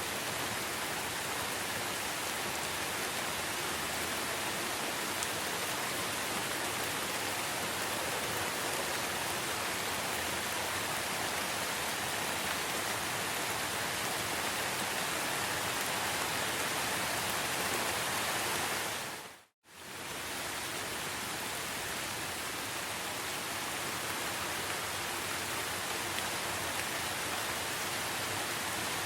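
Steady rain, an even hiss of falling drops. It fades out to silence for a moment about two-thirds of the way through and comes straight back.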